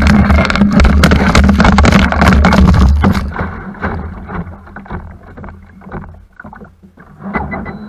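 Outboard-powered boat running fast, with a low engine hum and water spray rushing and crackling against a camera mounted close to the water. About three seconds in, the sound turns muffled and much quieter, leaving scattered dull splashes as the lens sits at the water's surface.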